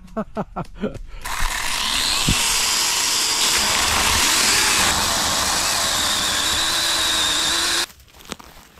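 Cordless mini chainsaw cutting into a tree trunk. A few clicks come first, then the saw runs steadily with a high whine for about seven seconds and stops suddenly.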